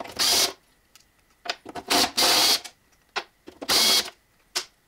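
Cordless drill/driver run in several short bursts, each under a second, spinning screws in a car door's sheet-metal inner panel.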